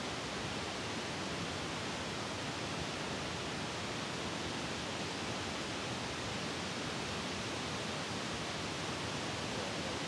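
River rapids rushing steadily, a whitewater cascade churning into a pool: an even, unchanging wash of water noise.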